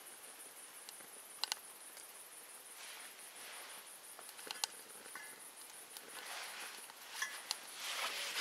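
A few sharp clicks and crackles from twigs being fed into, and burning in, a small wood-gas camp stove, with soft rustles in between. Crickets chirr steadily in a high, evenly pulsing trill throughout.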